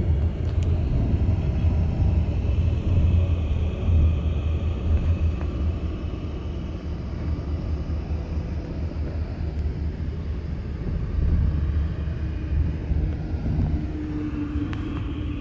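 Steady low rumble of a large road vehicle's engine and tyres while it drives along at highway speed, heard from inside the cab. A faint steady whine joins in near the end.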